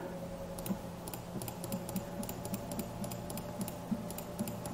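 Computer keyboard keys clicking lightly in irregular taps, a few a second, over a faint steady electrical hum.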